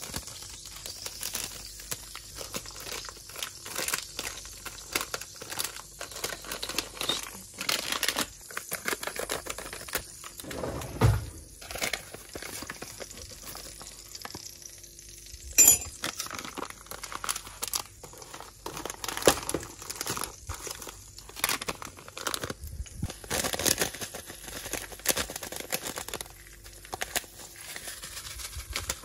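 Hands at work in a kitchen: irregular rustling and handling noise with scattered knocks and clicks, a louder thump about eleven seconds in and a sharp click a few seconds later.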